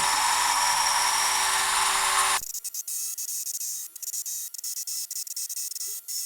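A Dremel rotary tool spinning a diamond bit at steady speed, a whine over a grinding scratch as it engraves glass. It cuts off abruptly about two and a half seconds in, leaving a quieter sound broken by many light clicks.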